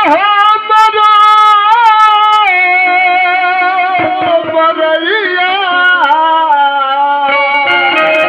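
Bhojpuri folk-song ensemble music: a lead melody of long held notes with smooth sliding bends, over instrumental accompaniment.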